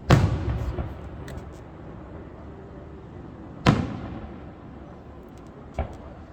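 Fireworks display: aerial shells bursting, three booms, the first two loud with a rumbling echo and crackle after them, a smaller one near the end.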